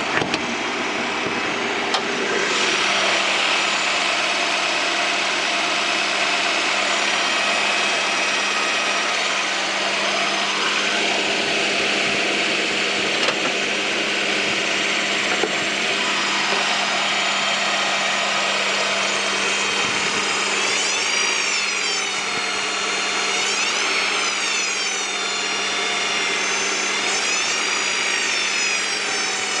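1998 Honda Prelude's H22A4 engine running with a hard, high-pitched whine from the oil pan. From about two-thirds of the way in, the whine's pitch rises and falls several times, as if the engine is being revved. The owner suspects a failing oil pump, as the oil pressure light also flickers at idle.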